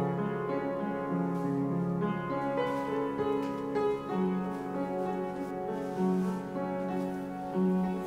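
Instrumental background music, a slow melody of held notes changing about once a second.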